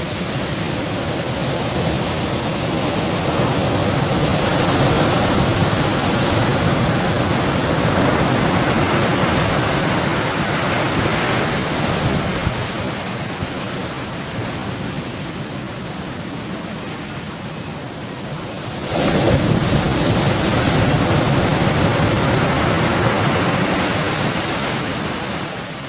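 Heavy sea waves surging and breaking around a bagan fishing boat, with wind noise over the microphone; the rush grows suddenly louder about two-thirds of the way through as a bigger wave comes in.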